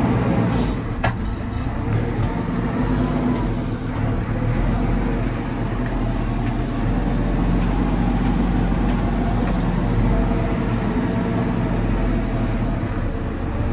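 JCB 4CX backhoe loader's diesel engine running steadily under work while the loader fills a truck, with a couple of brief sharp clicks about a second in.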